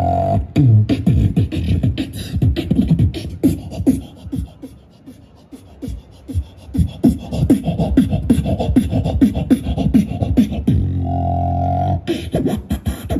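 Beatboxing into a handheld microphone, played through a small portable amplifier: fast rhythmic vocal drum sounds with falling bass drops. The beat thins out about four seconds in, then builds again, and near the end there is a held buzzing low note before the beat returns.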